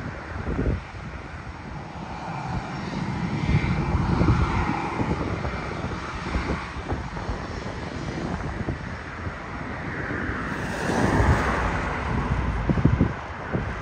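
Airbus A320-family jet airliner taxiing, its twin engines giving a steady rumble and whine, with a louder rush of noise near the end.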